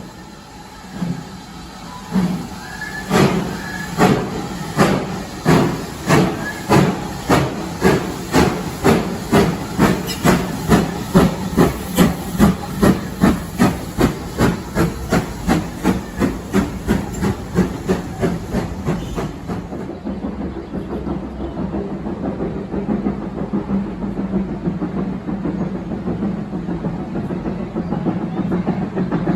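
Steam locomotive pulling away: its exhaust chuffs start slow, about one a second, and quicken steadily to two or three a second as it gathers speed. They then blend into a steady running rumble near the end.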